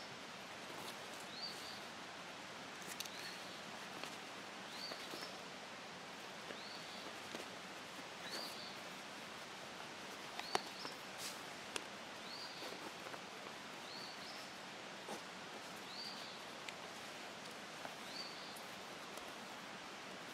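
Faint rustling and light clicks of leather and thread being handled as a needle is worked back through a stitching hole. A bird's short high call repeats about once a second over a steady outdoor hiss.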